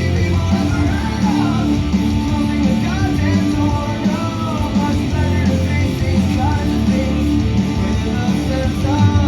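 A rock song with singing and guitar, played back through a Technics SU-V85A hi-fi amplifier and Jensen Challenger 2000 loudspeakers.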